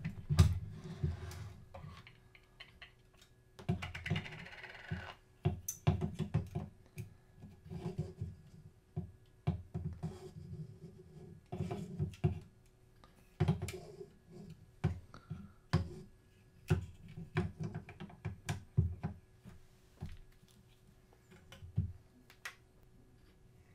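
Irregular clicks, taps and knocks of Matterport Pro 3 camera parts and small tools being handled during reassembly, coming in clusters with short pauses between.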